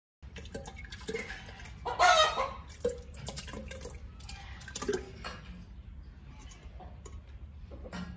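Chickens clucking in short calls, the loudest about two seconds in, over a steady low hum.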